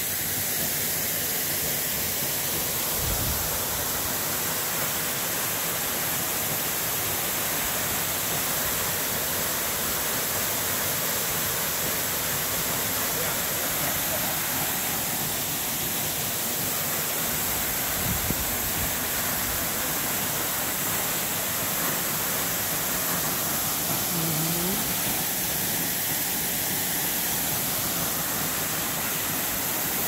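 Waterfall pouring into a rock pool: a steady, unbroken rush of falling water.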